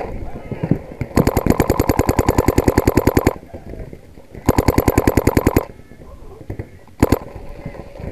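Paintball marker firing in rapid strings, more than ten shots a second, close to the microphone on the barrel: a long string of about two seconds, a shorter one of about a second, and a brief burst near the end.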